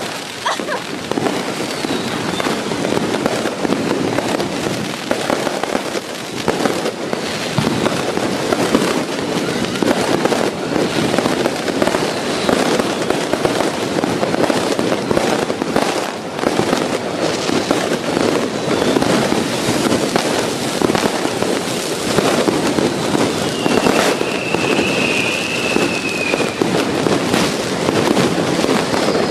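Many firecrackers and fireworks going off at once: a dense, unbroken barrage of crackling and popping. A short high whistle rises out of it about three quarters of the way through.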